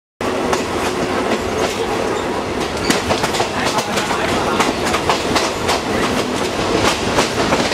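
Passenger train running, heard from inside a carriage: a steady rumble with frequent sharp clicks and clatter from the wheels on the rails. It cuts in suddenly just after the start.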